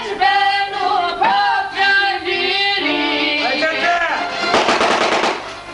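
Folk music played live on violin, accordion and a long-necked lute, with a man singing over the instruments in a wavering, ornamented line. The playing thins out near the end.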